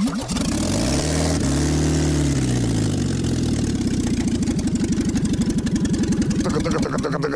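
Lada 2107's carburetted four-cylinder engine, made deliberately unbalanced by a cut flywheel, catches and revs up briefly, then drops back. It then runs with a fast, uneven pulsing, shaking hard in its mounts.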